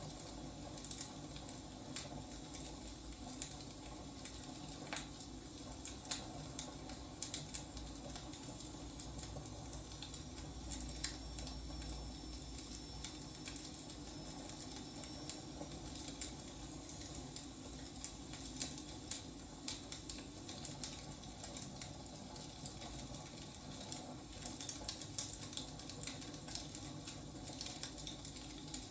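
Wood fire burning: irregular sharp crackles and pops over a steady low hiss, with a faint high whistle for a few seconds in the middle.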